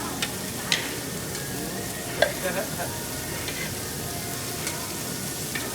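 Food sizzling steadily at the table, with several sharp clinks of utensils; the loudest clink comes a little past two seconds in.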